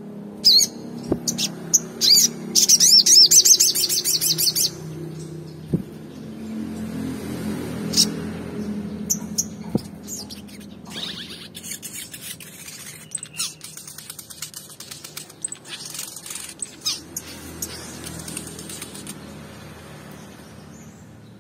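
Olive-backed sunbird (sogon) calling: sharp high chirps, then a fast ringing trill about three seconds in, followed by a long run of rapid twittering chirps in the second half. A low steady hum sits underneath.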